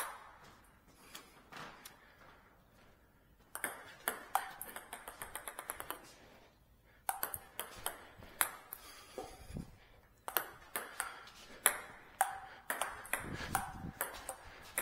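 Table tennis ball hitting bats and the table in short rallies: sharp clicks in bursts with brief pauses between, including a quick run of small bounces about four to six seconds in.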